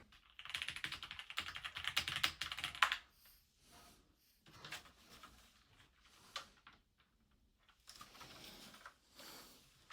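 Fast typing on a Keychron Q6 Max, a full-size gasket-mount mechanical keyboard: a dense run of key clacks for about three seconds, then scattered keystrokes with a short run again near the end.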